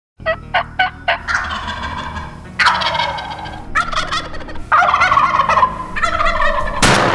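Wild turkey gobblers gobbling: about five rattling gobbles in quick succession, each about a second long. A sudden loud blast of sound cuts in near the end.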